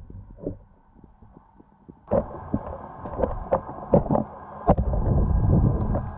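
Muffled sound through an underwater camera housing: faint knocks at first, then from about two seconds in louder water noise with several sharp knocks, growing into a steady rush as the camera moves up off the bottom.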